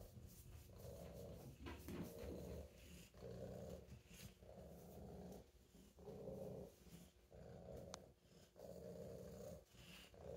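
Domestic tabby cat purring, the purr swelling and fading about once a second with its breaths.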